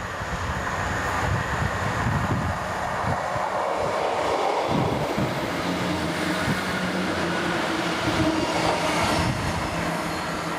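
A Class 158 diesel multiple unit passing close by: the steady hum of its diesel engine over the rumble of wheels on the rails.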